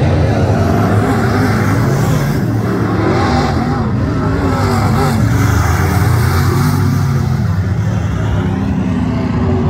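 Dirt-track race car engine running hard at speed, its pitch rising and falling with the throttle.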